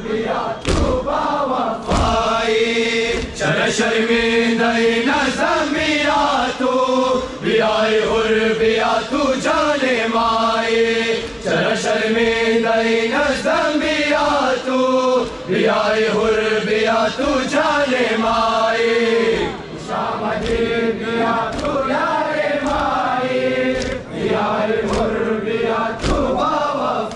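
A group of men chanting a noha in unison, in repeated sung phrases, over regular thumps of hands beating chests in matam.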